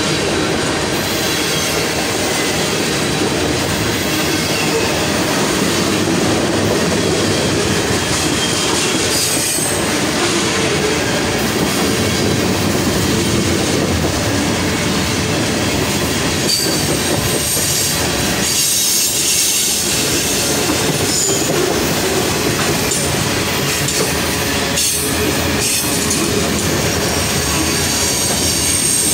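Freight cars of a mixed freight train rolling past close by: steel wheels running over the rails in a steady rumble and clatter, with thin high wheel squeal in the second half.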